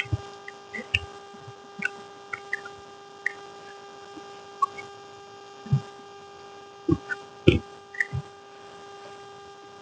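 Eating noises: scattered short mouth smacks and small clicks while chewing, with a few louder knocks about six to eight seconds in, over a steady electrical hum.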